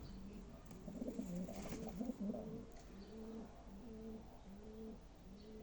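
Domestic pigeons cooing: a cluster of overlapping coos about a second in, then a steady run of repeated low coos.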